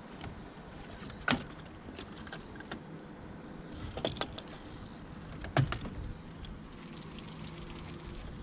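A few sharp knocks and clatters in a fishing boat over a steady low hum, the loudest about a second in and again just past the middle.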